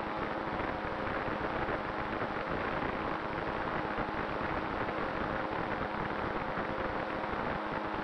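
Steady rush of air over the onboard camera of a radio-controlled ASW28 model glider in flight, with the faint steady hum of its nose motor and spinning propeller underneath.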